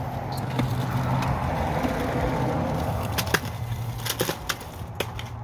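Homemade automatic candy dispenser running, with a steady whirring hum and candy rattling. A few sharp clicks come in the second half as pieces drop into a plastic bucket.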